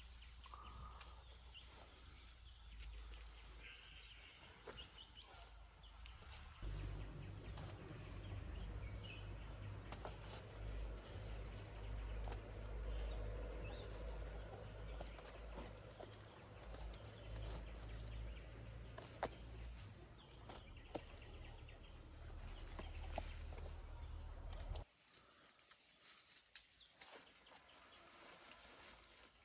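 Steady high insect chirring, with a low rumble that comes in about six seconds in and drops away a few seconds before the end, and a few faint clicks.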